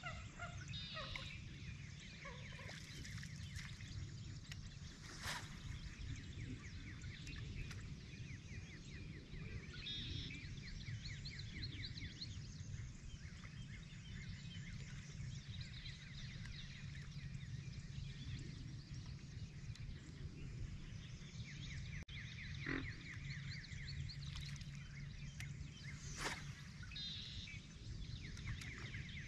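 Many short bird chirps and calls over a steady low rumble, with a couple of brief sharp clicks.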